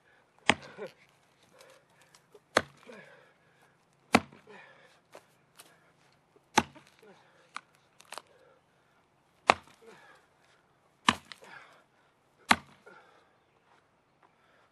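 Axe chopping into the trunk of a dead tree: seven hard, sharp strikes at uneven intervals of about one and a half to three seconds, with lighter knocks between them. The wood is rotten in places but still solid in others.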